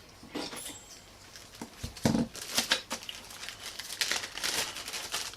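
Plastic packaging rustling and crinkling, with small hard parts clicking as AIO cooler mounting brackets are handled, and a single low thump about two seconds in.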